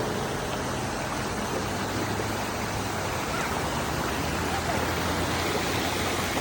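Steady rush of falling water from a small waterfall.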